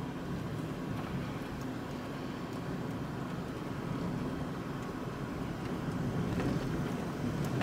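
Electric car driving along a paved road: steady tyre and road noise heard from inside the cabin, with a faint steady high tone over it. It gets a little louder near the end.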